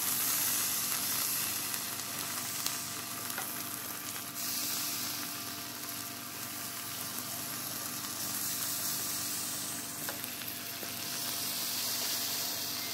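Chocolate fudge sauce and a brownie sizzling on a heated cast-iron skillet: a steady hissing sizzle that swells and eases every few seconds.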